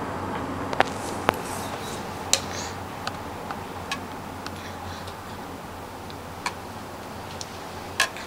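A baby sucking milk from a plastic feeding bottle: sharp, irregular clicks from the teat, about eight in all, over a steady low hum.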